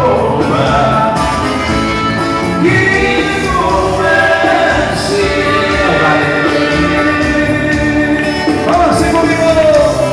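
Live band music at a steady, loud level, with a sung melody over the band.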